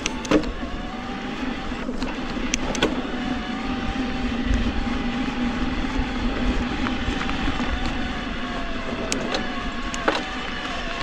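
E-mountain bike's mid-drive motor whining steadily under load in boost assist on a steep climb, over tyre and trail rumble, with a few sharp knocks from bumps.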